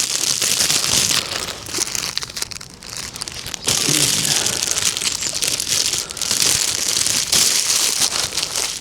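Crinkling and rustling of packaging being handled by hand, with a quieter stretch about two to three seconds in.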